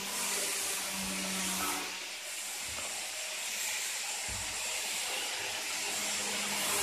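Steady hiss of background noise, with a low hum that comes and goes and a soft thump about four seconds in.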